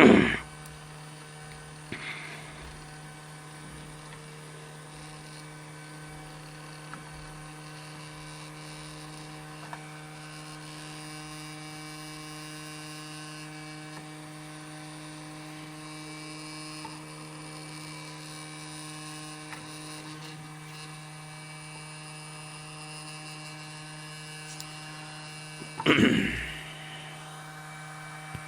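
Steady mains hum from a bench power supply that has just been switched on, with a sharp knock at the start and a short, loud clatter near the end.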